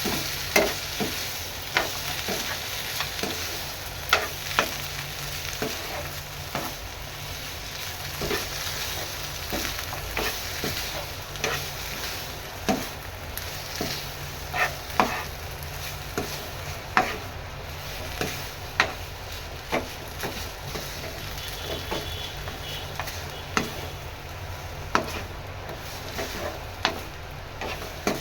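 Food sizzling in a pan while it is stirred, the spoon or spatula knocking and scraping against the pan every second or so.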